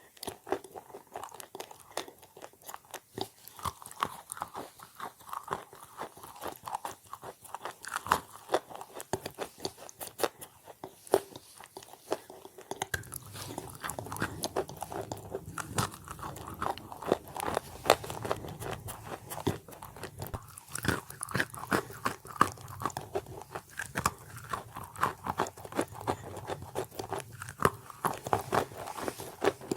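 Chalk being bitten and chewed close to the microphone: dense, irregular crisp crunching and crackling that goes on without pause.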